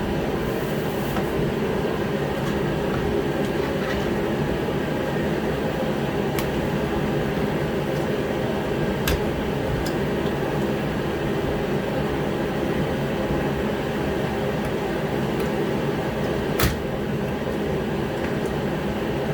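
Heater running with a steady hum, with a few sharp clicks on top, the loudest near the end.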